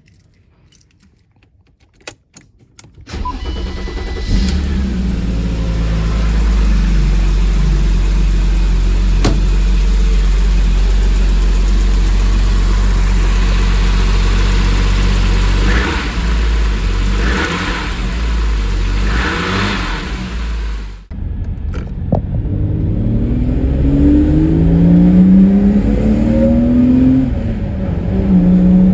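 BMW E34 M5's S38 straight-six breathing through a carbon Eventuri intake. It comes in about three seconds in and runs steadily, with three brief bursts of intake noise near two-thirds of the way through. After a sudden cut it revs under acceleration, its pitch rising in repeated sweeps.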